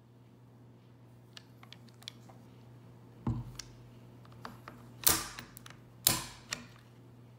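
Bolt of a Mosin-Nagant obrez being worked by hand: a few light metal clicks, a dull thump, then two sharp metallic clacks about a second apart, the loudest sounds, each ringing briefly.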